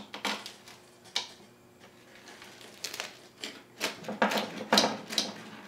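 Crisp crust of an oven-baked pepperoni pizza crunching as a blade cuts down through it, a string of short crackles that comes thicker in the second half. The crunch marks a crispy outer crust.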